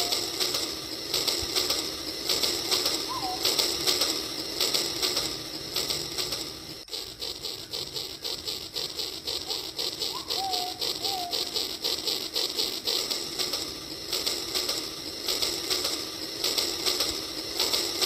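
Model train running on its track with a fast, even clatter, while a bird gives a few short calls near the start, about three seconds in and again around ten seconds in.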